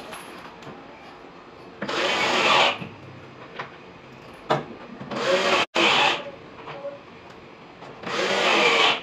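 Power drill working on a wooden wardrobe door at the hinge, running in three short bursts of about a second each.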